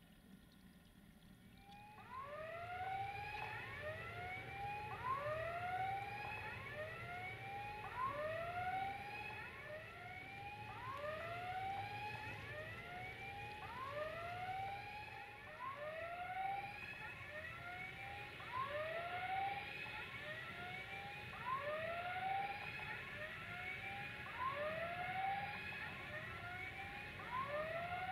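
Electronic warning signal of the kind used at a railway level crossing, switching on about two seconds in and repeating a short rising-and-falling tone over and over. More than one unit sounds out of step with the others.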